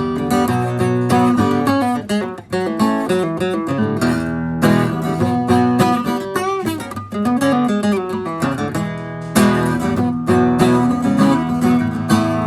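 Acoustic guitar strummed and picked in an instrumental break between the song's verses.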